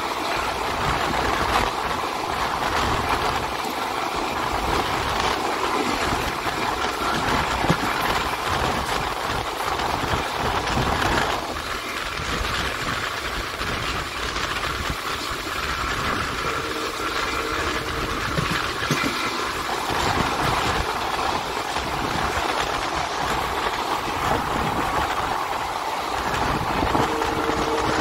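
Express passenger train running at speed, heard on board: a steady noise of wheels rolling on the rails.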